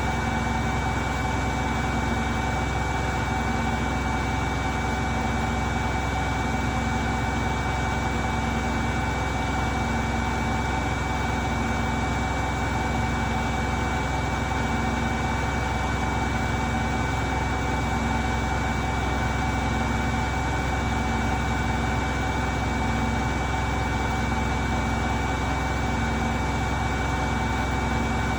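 Beko washing machine spinning at high speed: a steady motor whine over a constant hum, with a low drone that swells and fades about every two seconds.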